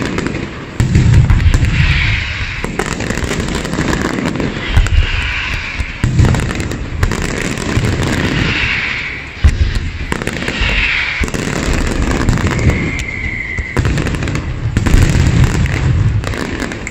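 Fireworks display going off: a dense run of crackling and bangs, with heavy booms about a second in, around six and nine seconds, and near the end. A short whistle sounds about three-quarters of the way through.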